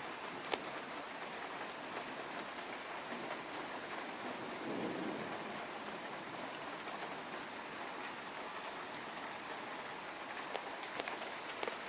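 Steady rain during a thunderstorm, falling on a surface, with scattered sharp drop impacts. There is a brief low rumble about five seconds in.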